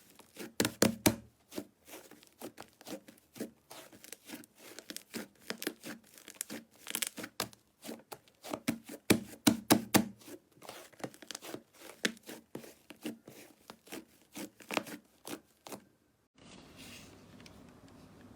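Slime being pressed and worked by hand, giving a dense run of sharp, irregular crackles and pops. About sixteen seconds in it cuts to a quieter, steadier squishing texture.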